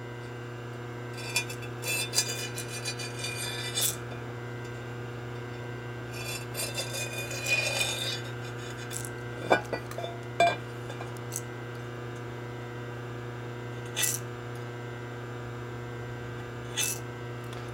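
Hand deburring tool scraping along the edge of an aluminium engine case in a few short strokes, taking a sharp corner off, with several sharp clicks and taps as the tool and part are handled. A steady low hum runs underneath.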